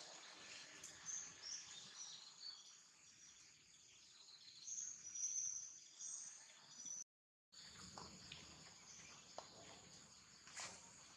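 Faint outdoor ambience: a steady high insect drone with a few short bird chirps. The sound cuts out completely for about half a second a little past the middle.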